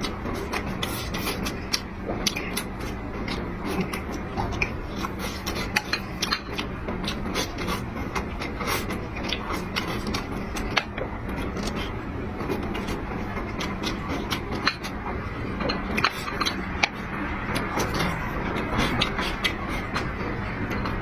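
Close-up eating sounds: steady chewing with many irregular sharp clicks and smacks.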